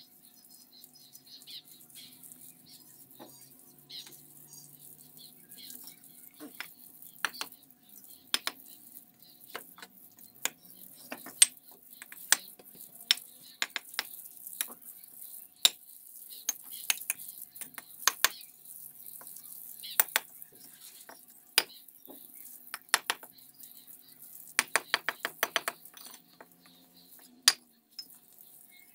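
Steel mason's trowel clinking and scraping on fired clay bricks and wet mortar as bricks are laid and tapped into place: irregular sharp clicks and knocks, with a quick run of taps near the end.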